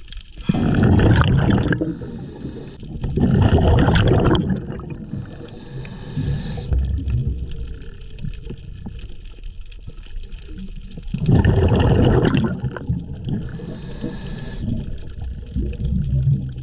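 Scuba diver breathing through a regulator underwater: three loud gurgling bursts of exhaled bubbles, each about a second and a half long, with a fainter hiss of inhaled air between them.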